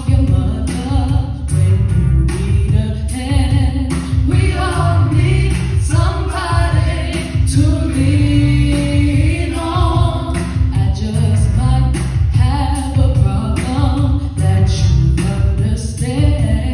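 A woman singing solo into a microphone over amplified musical accompaniment with a heavy bass.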